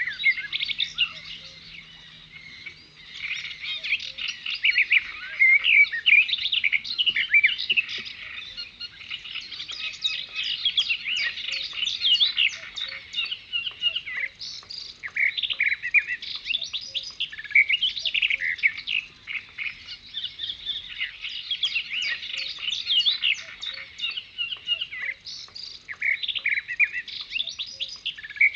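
A busy chorus of small birds chirping, many quick high calls overlapping without a break.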